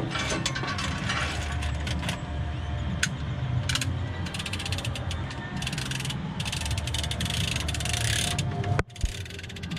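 Lever-operated chain hoist (chain fall) ratcheting in quick runs of clicks as its handle is worked back and forth, taking up its load chain. The clicking is thickest in the second half.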